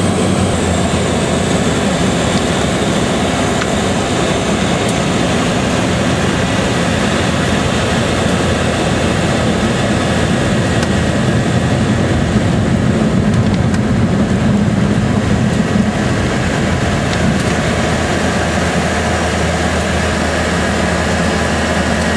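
A boat's engine running steadily, a loud, even drone that holds without a break.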